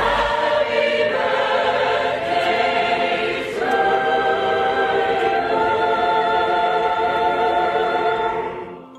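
Choral music: a choir of voices singing long held chords that change about halfway through, fading near the end.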